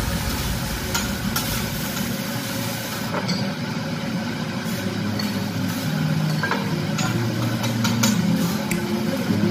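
Fried rice sizzling on a hot teppanyaki griddle, with metal spatulas scraping and tapping the plate now and then, over a steady low hum.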